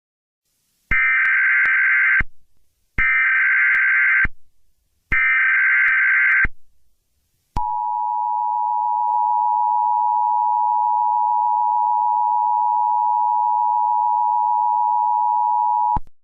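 Emergency Alert System broadcast tones: three bursts of SAME digital data tones, about a second and a half apart, then the two-tone attention signal held steady for about eight seconds before cutting off. It is the header that opens an emergency alert.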